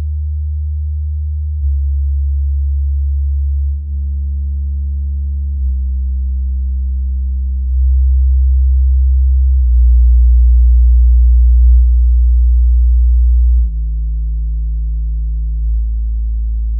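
Bass test tones played through desktop computer speakers: a steady low hum that changes to a new pitch about every two seconds, with faint higher overtones above it, loudest in the middle.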